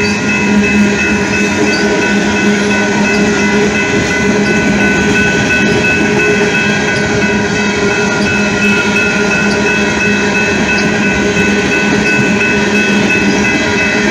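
Freight train of tank cars rolling past at speed, a steady rumble and rattle of wheels on rails, with a steady droning tone under it.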